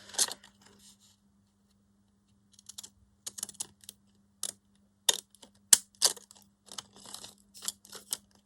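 Stamp-edge craft scissors snipping paper: a run of irregular, sharp snips that starts about two and a half seconds in.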